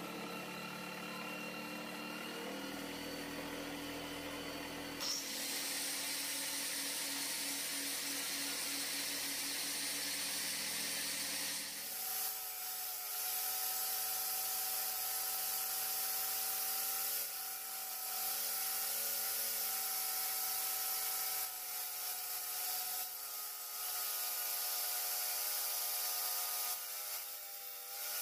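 Angle grinder with a toothed disc cutting into a wooden spindle that a power-tool-driven homemade lathe is turning. Steady motor whine over the hiss of the disc shaving wood, with a few brief dips in loudness.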